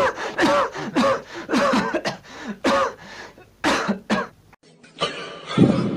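A person coughing repeatedly in short bursts, stopping about four seconds in.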